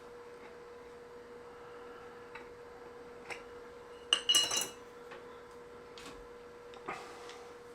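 Small metal tools clinking on a workbench: a quick run of bright clinks about four seconds in, with a few lighter single clicks before and after, over a steady faint hum.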